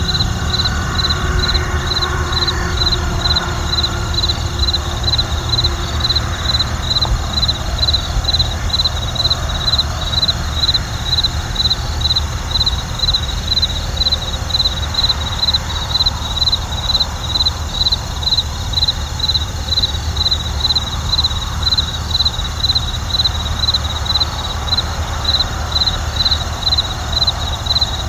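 Crickets chirping in an even rhythm of about two chirps a second, over a steady low rumble of distant traffic.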